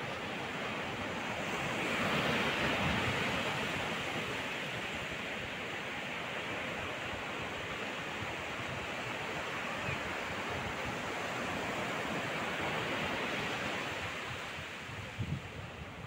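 Ocean surf: waves breaking and washing up a sandy beach in a steady rushing hiss that swells loudest about two to four seconds in.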